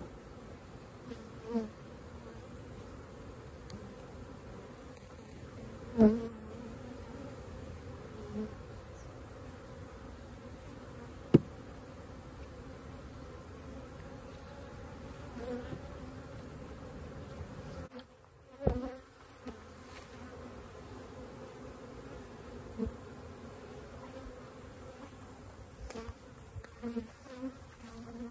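Honeybees buzzing steadily in large numbers around the open hives. A few sharp knocks and thumps break in, the loudest about a fifth and two fifths of the way through.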